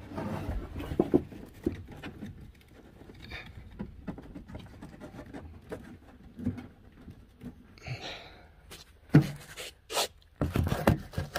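Scattered rustling, scraping and light knocks of a cable and fish wire being pulled through a grommeted hole in a bus wall, with a few louder knocks near the end.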